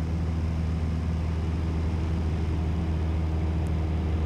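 Piston engine and propeller of a high-wing single-engine light aircraft droning steadily in flight, heard from inside the cockpit.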